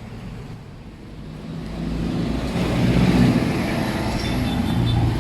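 Motor vehicle running, its low engine and road rumble growing steadily louder from about a second and a half in.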